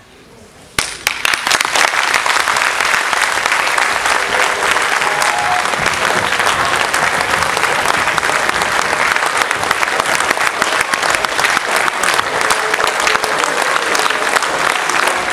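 Audience clapping, starting abruptly about a second in and continuing steadily at full strength.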